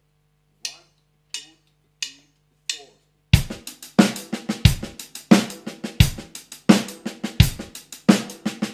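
Drum kit played with sticks: four count-in clicks, then a rapid groove built on the basic paradiddle sticking (right, left, right, right, left, right, left, left), with a strong low drum hit about every two-thirds of a second. Played this way the groove sounds clunky and angular rather than funky.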